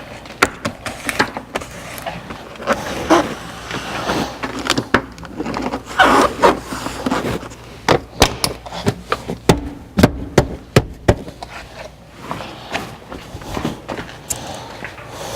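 Plastic car interior trim panels and clips being handled and pressed back into place: a scattered series of sharp clicks and knocks with some rustling of plastic.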